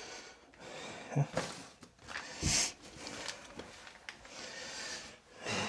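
Irregular rustling, rubbing and knocks of hands at work, mixed with a few heavy, noisy breaths; the loudest is a sharp breathy burst about two and a half seconds in.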